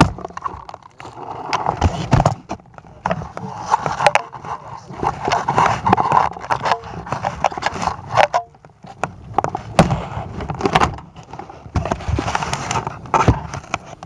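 Handling noise on a compact camera's built-in microphone: scraping, rubbing and rustling as the camera is carried and moved about, with many sharp knocks and clicks.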